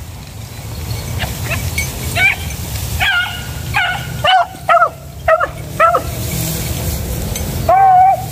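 Hunting beagle giving tongue on a scent trail: a string of short, high yelping barks, roughly one a second, ending with one longer, drawn-out cry near the end.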